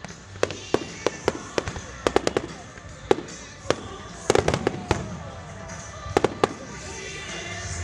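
Aerial fireworks shells bursting in an irregular string of sharp bangs, with a tight cluster of bangs about four and a half seconds in and another just after six seconds.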